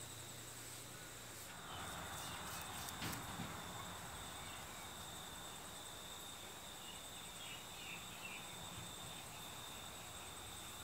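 Insects trilling steadily at a high pitch. A short rush of noise with a couple of light knocks about two to three seconds in.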